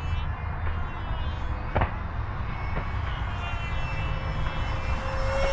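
Freewing Lippisch P.15's 64mm electric ducted fan whining steadily and faintly as the small jet flies at a distance, over a steady low rumble, with one short click about two seconds in.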